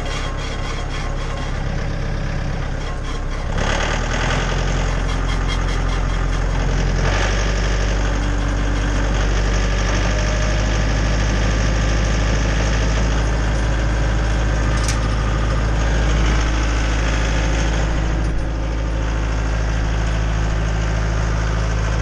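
Tractor engine running a Jinma 8-inch PTO wood chipper, speeding up and getting louder about three and a half seconds in, shifting again about seven seconds in, then running steadily.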